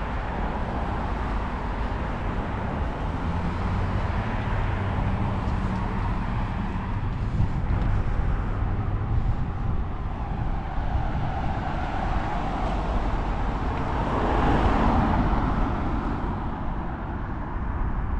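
Road traffic: a steady low roadway rumble, swelling louder about fourteen to fifteen seconds in and then fading, as a vehicle goes by.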